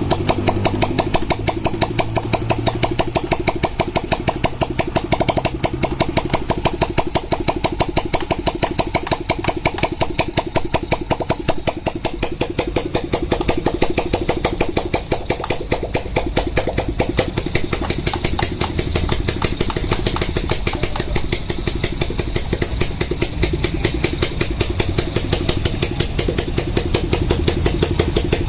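Yamaha 110cc motorcycle engine running steadily at idle, a fast even train of firing pulses.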